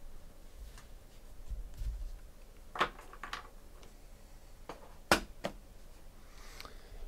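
Trading cards and their packaging handled at the table: soft low thumps, then two pairs of sharp clicks, about three and about five seconds in.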